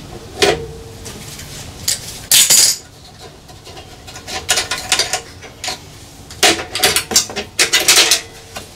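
Metal hand tools and wiring hardware clinking and clattering in a sheet-metal equipment bay: scattered clicks, a short loud rasp about two and a half seconds in, then a quick run of clinks with a short metallic ring near the end.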